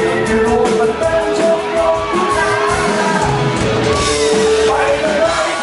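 Rock band music with singing: a voice holding long notes over guitar and drums.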